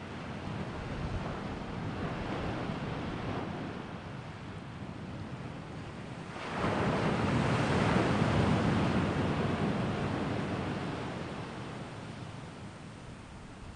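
Wind blowing across the microphone outdoors, a steady rushing that rises suddenly into a stronger gust about halfway through and then slowly dies down.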